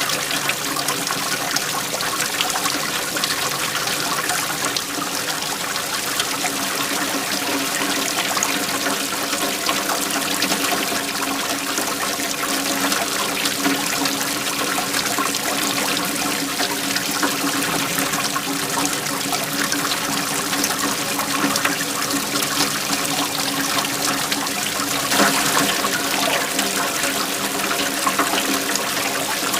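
Waterfall: water falling and splashing in a steady, unbroken rush, with a brief louder surge about 25 seconds in.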